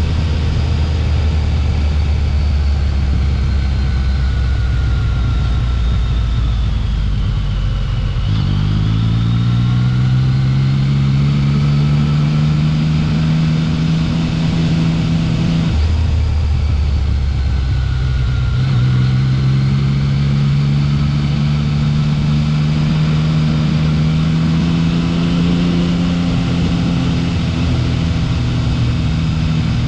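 Yamaha XSR900's inline three-cylinder engine running under way: it holds low revs, then climbs steadily in pitch from about eight seconds in, drops back abruptly around sixteen seconds, and climbs again from just before twenty seconds. A steady rushing noise runs beneath it.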